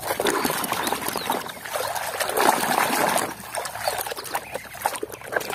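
Plastic toy vehicles being swished and scrubbed by hand in a basin of muddy water: splashing, sloshing and trickling water with small knocks of plastic.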